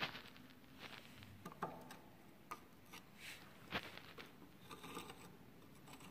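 Screwdriver tip scraping and tapping along the corroded tank of a rotted-out car cooling radiator: a scatter of faint scrapes and clicks.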